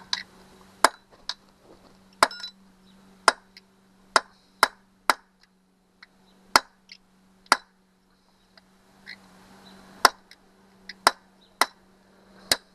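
Hammer striking a small steel pin punch set against a broken, rust-locked screw stud, a string of sharp metallic taps in irregular groups with short pauses. The punch is not biting into the stud.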